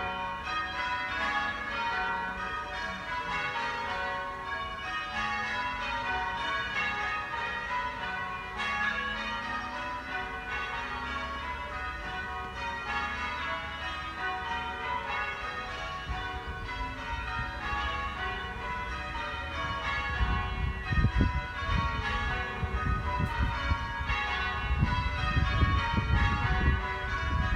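Church tower bells rung in changes: a steady, continuous run of bell strokes following one another in sequence. A low rumbling noise joins in from about two-thirds of the way through.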